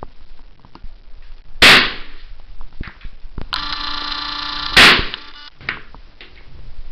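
Two loud shots from a Kalashnikov (AK-47) rifle, about three seconds apart. Between them a steady electric whine starts with a click: the camera's zoom motor running.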